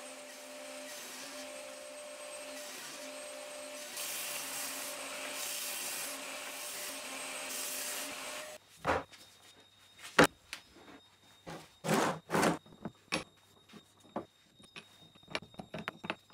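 Benchtop table saw running steadily with a constant hum, louder from about four seconds in as hardwood is fed through the blade. It cuts off sharply after about eight and a half seconds, and then wooden end-grain blocks knock and clack against each other and the clamp bed as they are set down one by one, the loudest knock about ten seconds in.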